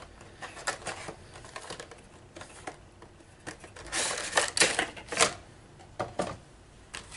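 A Funko Pop's cardboard box being opened and the figure in its plastic bag pulled out, heard as scattered clicks and rustling. The louder, denser rustling comes about four to five seconds in.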